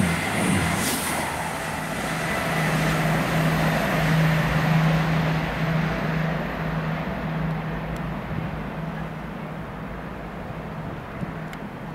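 A train running through on the main line, its noise slowly fading as it moves away, with a steady pulsing hum that dies out near the end.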